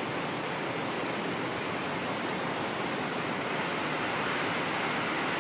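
Heavy rain pouring down, a constant even hiss mixed with the rush of a flooded river.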